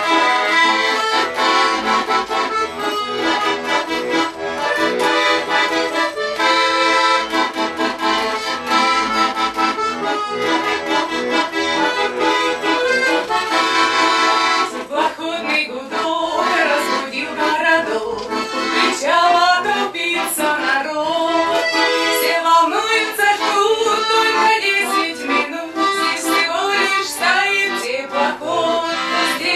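Russian garmon (button accordion) playing a folk tune: held chords for about the first half, then a moving melody line.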